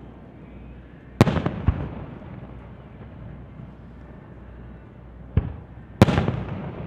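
Aerial firework shells bursting: two loud bangs a little over a second in, a smaller bang near the end, then the loudest bang, each trailing off in a short echo.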